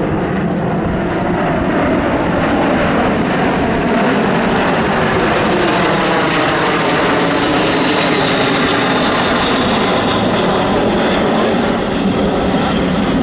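A formation of Aero L-39 Albatros jet trainers flying overhead, their turbofan engines making a loud, steady jet noise with slowly shifting ripples. A faint high whine falls slowly in pitch through the middle.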